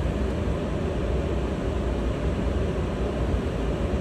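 Steady flight-deck noise of a Gulfstream IV on an ILS approach with one engine running: an even rushing hiss over a low rumble that holds at one level.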